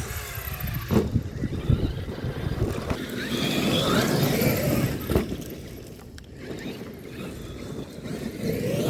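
Brushless electric RC monster trucks running over dirt, their motor whine rising and falling with the throttle, with a few sharp knocks from the trucks hitting the ground.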